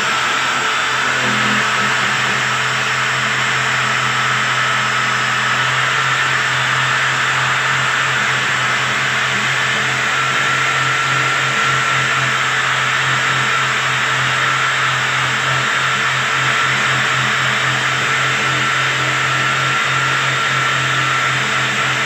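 Electric drill fitted with a wire wheel brush running steadily, scouring rust off the sheet-steel bottom edge of a refrigerator cabinet.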